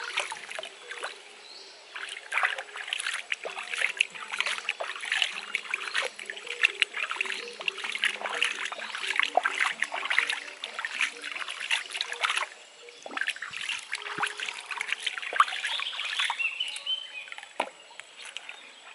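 Hands splashing and rubbing in shallow stream water, washing something: a dense run of small splashes and trickles that thins out near the end, when a bamboo tube is dipped into the water.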